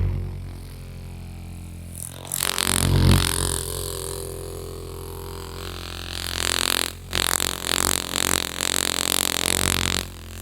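Background music: a steady low drone with two louder, noisy swells, one about two seconds in and a longer one from about six to ten seconds in.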